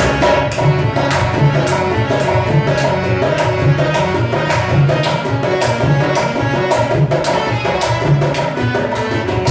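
Dholak playing a steady rhythm under held melodic tones from an accompanying instrument: an instrumental passage of a Hindi film song, with no singing.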